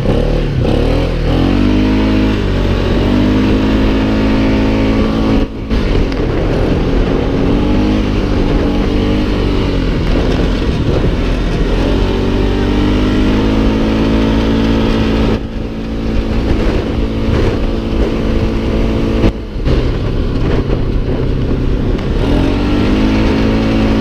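Polaris ATV engine running under way, its pitch rising and falling as the throttle is worked. The sound drops off briefly three times when the throttle eases.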